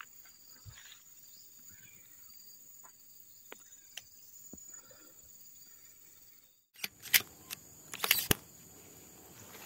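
Faint footsteps and rustling through undergrowth over a steady high insect drone. After an abrupt cut about two-thirds in, a few sharp clicks or knocks, the loudest around eight seconds in.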